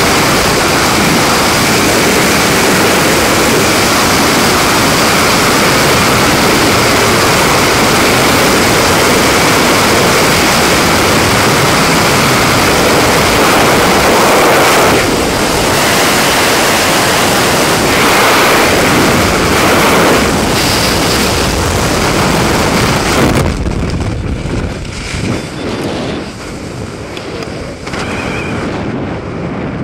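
Loud, steady wind rushing over the camera's microphone in skydiving freefall. About 23 seconds in it drops off sharply as the parachute opens, leaving quieter, uneven wind under the canopy.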